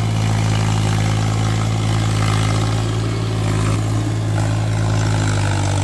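Farm tractor's diesel engine running steadily at an even speed, under load as it drags a tiller through a flooded paddy field on iron cage wheels.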